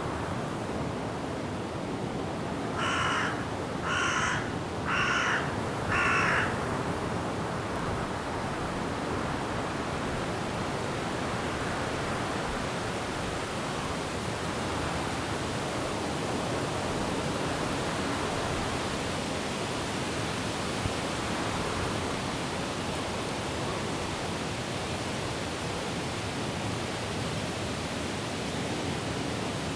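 A crow caws four times, about a second apart, each call a little louder than the last. Behind it, rain and wind in the trees make a steady rushing noise.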